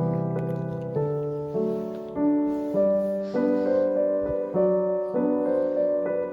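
Background music: a gentle piano melody, with a new note or chord struck about every half second.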